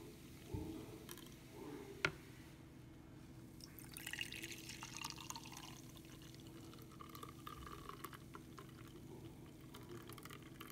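Frothy green drink poured from a glass jug into a mug: faint liquid pouring and dripping, with a single sharp tap about two seconds in, over a faint steady hum.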